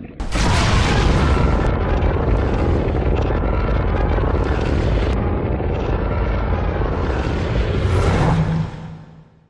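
A Godzilla sound effect from the Legendary films (2014–2020): a loud, noisy sustained blast that starts suddenly, holds steady for about eight seconds, then fades out.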